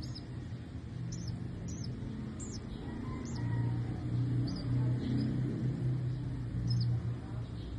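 Young rescued bird chirping: short, high peeps roughly once a second, over a steady low hum.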